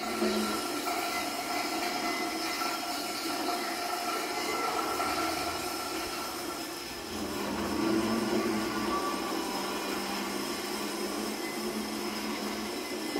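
A continuous noisy drone with steady sustained tones from an experimental live sound set played on objects and electronics; a lower tone joins and it grows a little louder about seven seconds in.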